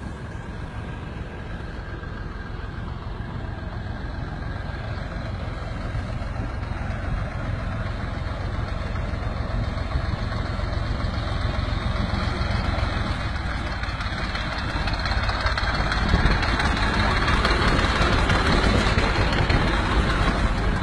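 Tractor's diesel engine running and growing steadily louder as it approaches, pulling a long train of loaded carts. Over the last few seconds a louder rumble of the towed carts rolling past joins it.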